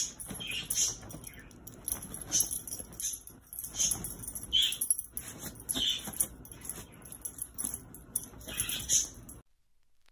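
A small dog and a kitten play-fighting on bedding: scuffling, with a jingling collar and short sharp noisy bursts every second or so. It cuts off suddenly near the end.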